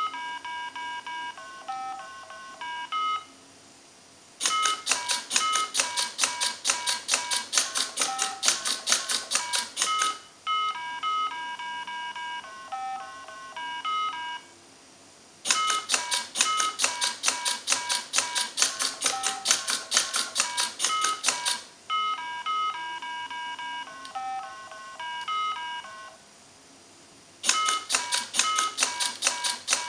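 Mini Simon electronic memory game playing its sequence of short beeping tones, then a run of rapid sharp clicking as the robot presses the buttons back, the game's tones sounding with each press. This cycle of beeps, a brief lull and clicking repeats about three times.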